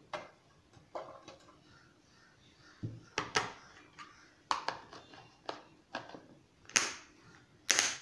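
Plastic kitchen containers knocked and tapped as chopped bell pepper is tipped from a vegetable chopper's plastic bowl into an airtight container and the lid is handled: a series of irregular short clacks, the two loudest near the end.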